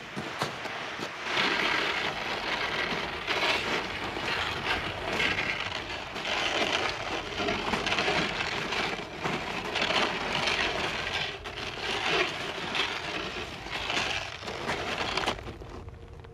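Footsteps crunching through snow: slow, steady steps about every second and a half. They stop near the end.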